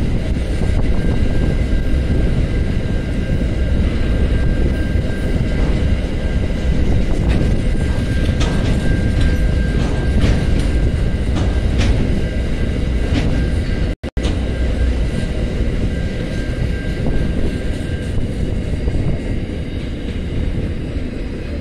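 A long freight train's wagons rolling past: a steady heavy rumble with irregular sharp clicks and clanks of wheels over rail joints, and a thin high squeal that stops about eighteen seconds in. The sound drops out for a split second about two-thirds of the way through and eases off slightly near the end.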